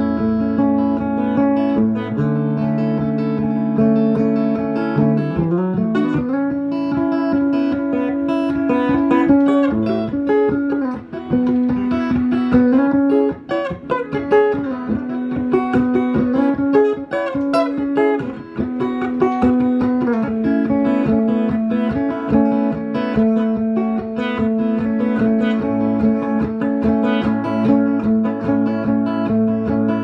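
Custom flame maple and mahogany electric guitar played through a 15-inch powered loudspeaker: a free jam of sustained chords and picked single-note lines. There is a slide up in pitch about five seconds in, and a busier run of quicker notes in the middle.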